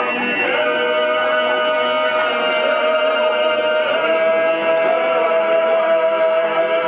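A cappella choir singing Orthodox liturgical chant, several voices holding one long chord with a steady upper note that moves to a new pitch at the very end.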